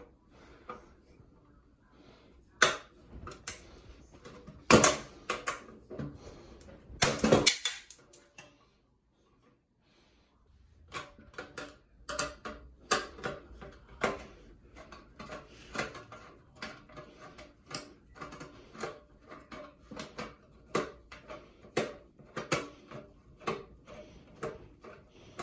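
Metal clinks, taps and knocks of a screwdriver working on a sheet-metal electrical box, irregular, with a few louder strikes in the first several seconds and lighter tapping later.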